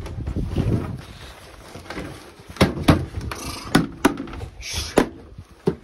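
Boxer puppy scuffling with a leather bite tug on a wooden deck: scattered sharp knocks and scuffs of paws and feet on the boards, about six in the second half, with brief rustles between them.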